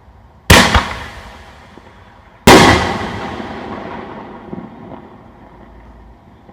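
5-inch aerial firework shells going off: two loud, sharp booms about two seconds apart, each echoing away, the second fading more slowly.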